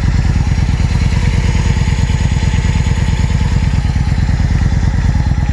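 2009 Victory Hammer S motorcycle's 106-cubic-inch V-twin engine idling with a steady, even pulse.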